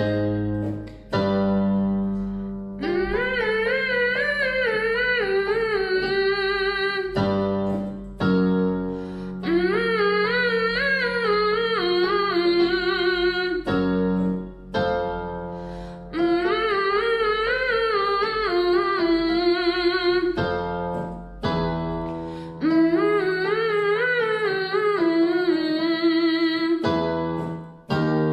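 A woman humming with closed lips in a vocal warm-up exercise. Four times over, a keyboard sounds a note, then she hums a quick run of short "mmm" notes that climbs and comes back down.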